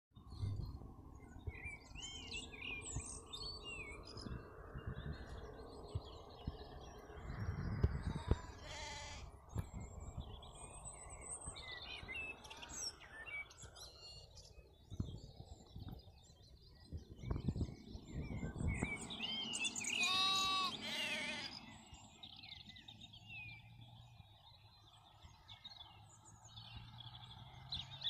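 Sheep bleating, with one clear bleat about twenty seconds in and a shorter one near nine seconds. Small birds chirp now and then, over a low, uneven rumble.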